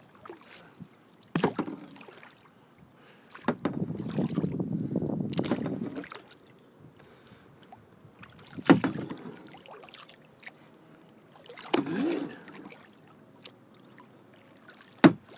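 Kayak paddle strokes: the blade splashing into the water about once every three seconds, with a longer rush of water lasting about two seconds around four seconds in.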